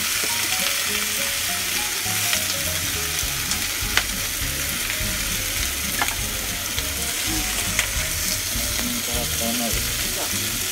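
Whole fresh shrimp sizzling steadily in hot butter in a frying pan, with a wooden spatula knocking against the pan a few times.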